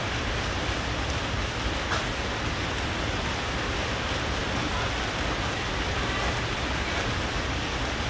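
Steady rain falling, an even hiss that holds through the whole stretch.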